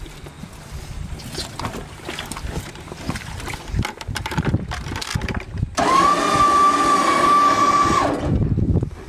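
Wind on the microphone and light handling knocks. About six seconds in, a loud, steady motor whine starts suddenly, holds for about two seconds, then drops in pitch and winds down.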